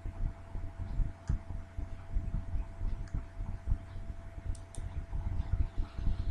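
Faint room noise at a desk: irregular low thumps and rumble with a thin steady hum. A few light clicks sound over it, including a quick pair about four and a half seconds in, fitting a mouse clicking on a link.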